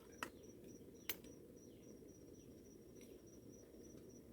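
A cricket chirping in a high, evenly pulsed trill, with two sharp clicks in the first second or so.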